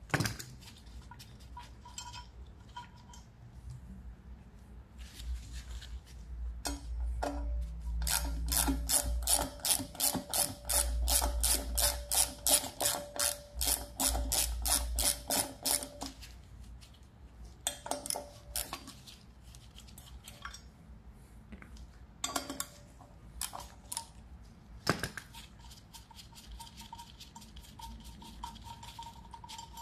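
A ratchet wrench clicking in a fast, even run of about four clicks a second for several seconds near the middle, working the bolts of a mini bike split sprocket. Scattered metallic clinks and clatter of tools and parts being handled come before and after it.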